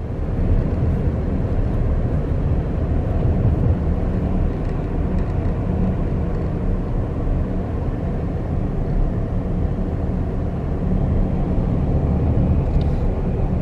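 Chevrolet car driving along a road: a steady low rumble of road and engine noise.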